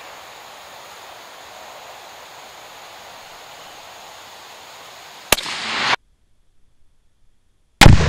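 A 6.5 Creedmoor rifle shot about five seconds in: a sharp crack, then a rumble that swells and cuts off abruptly. After a short stretch of dead silence, a second, louder shot report comes near the end, with a long fading echo.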